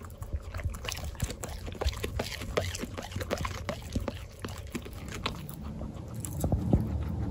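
Guinea pigs chewing fresh kale up close: a fast, irregular run of small crisp crunches and nibbles. A soft low thump stands out about six and a half seconds in.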